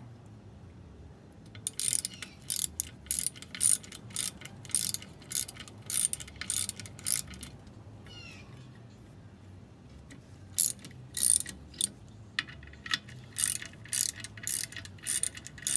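Ratchet wrench clicking in short runs as bolts are tightened into the threaded holes of a rusted-on brake drum to push it off the hub. There is a pause in the middle, then a denser run of clicks near the end.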